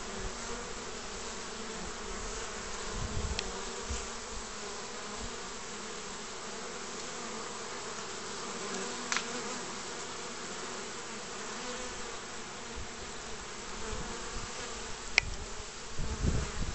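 Honeybees buzzing in a steady hum as they fly in and out at the entrance of a straw skep hive. A few brief sharp clicks, and some low rumble near the end.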